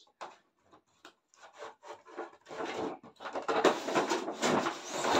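Cardboard toy box being handled and opened: a few light rustles, then, about two and a half seconds in, a long stretch of cardboard scraping and rubbing as the contents are slid out of the box.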